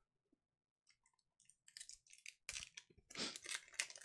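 1993 Marvel Masterpieces trading cards being handled and flipped through. After a second and a half of near quiet comes a run of short, dry clicks and scrapes of card stock rubbing together, busiest near the end.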